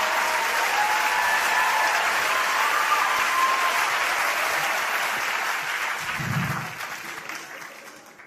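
Large stand-up comedy audience applauding, with a few whoops in the first seconds. The applause dies away over the last two seconds.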